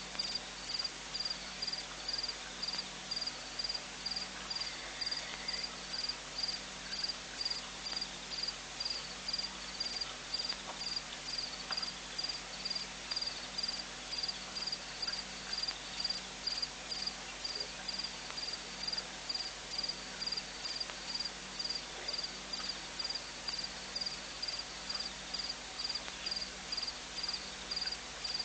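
A cricket chirping steadily, a high short chirp repeating evenly about twice a second, with a faint low hum underneath.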